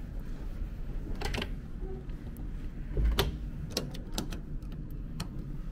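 Clicks and knocks of a cabin door's card-key lock and latch as the door is opened, the loudest a thump about three seconds in. A steady low hum of the ferry's engines runs underneath.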